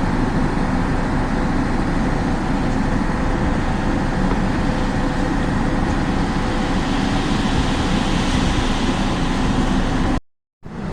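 Heavy truck's diesel engine running steadily, a loud, even drone with a low hum. It cuts off abruptly near the end.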